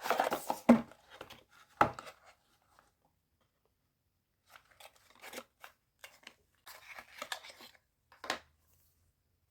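Scattered rustling and scraping handling noises, with two sharp knocks in the first two seconds, then short bursts of rustle and clicks after a pause.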